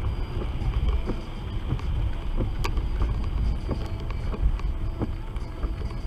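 Car cabin noise from a dashcam on the move in the rain: a steady low rumble of engine and wet road, with scattered sharp ticks through it.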